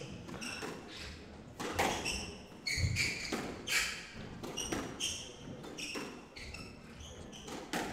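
Squash rally: repeated sharp hits of the ball off rackets and court walls, roughly one every half second to second, with short squeaks of shoes on the wooden court floor in between.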